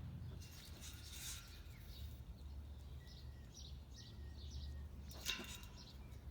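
Faint small-bird chirping, with short high chirps and a thin whistled note in the middle, over a low steady hum. Two brief rattles, about a second in and about five seconds in.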